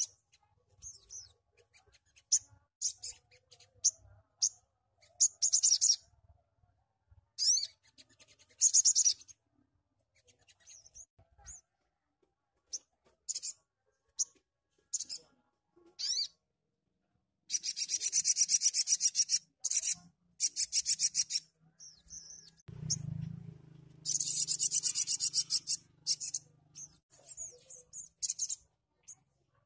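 Caged sogon (sogok ontong) singing: bursts of very high-pitched, fast chirping trills broken by short pauses, with the longest runs about two-thirds of the way through and again a few seconds later. A brief low rumble sounds between them.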